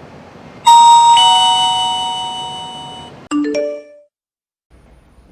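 Electronic smart-lock chime from its built-in speaker: a two-note ding-dong that rings and fades over a couple of seconds, followed by three quick rising beeps.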